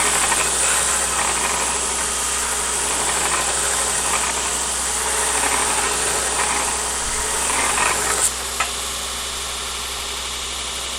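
Belt grinder running with steel held to the abrasive belt, a steady grinding hiss. About eight seconds in the grinding lets up with a couple of clicks, and the machine runs on a little quieter.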